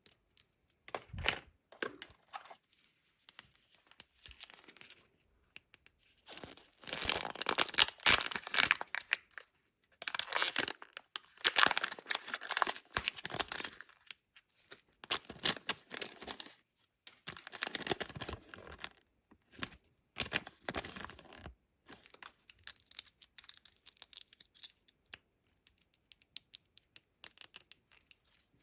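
Kinder Joy egg wrappers being torn open and crinkled by hand: a string of crackling, tearing bursts with short pauses between them.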